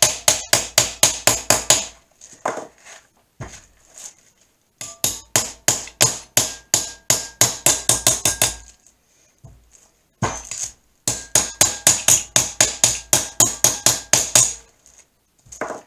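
Small 8-ounce brass hammer tapping a copper soft-jaw cover on a three-jaw lathe chuck jaw, a sharp metallic tap about five times a second in three quick runs with short pauses between. The copper is being beaten down over the jaw so that it fits tight.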